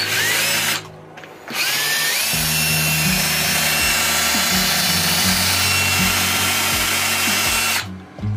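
Milwaukee electric drill motor, freshly fitted with new brushes, running: a short burst that stops under a second in, then it spins up again with a rising whine and runs steadily for about six seconds before cutting off near the end.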